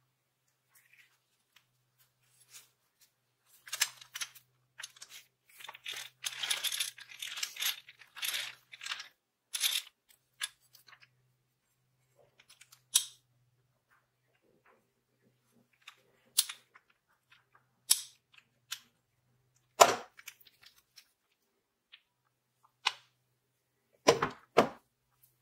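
Rusty old Goodell-Pratt hand drill being handled: scattered clicks and rattles of its metal gears, crank and frame, busiest in the first third. A louder knock comes about two-thirds of the way through and two quick knocks near the end, the drill knocking against the wooden workbench.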